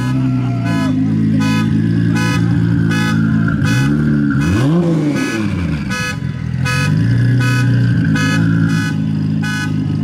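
A car alarm beeping over and over, about one and a half beeps a second, set off by the revving, over the 1750 hp Brill Steel Nissan GT-R's engine idling. The engine blips once, rising and falling in pitch, about four and a half seconds in.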